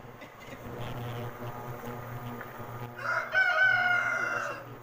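A rooster crows once, a single long call of about a second and a half near the end, falling slightly in pitch. A low steady hum runs underneath.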